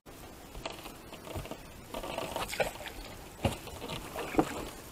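Water splashing and pattering at a boat's side as a hooked longnose gar is netted, with two sharp knocks on the boat about a second apart near the end.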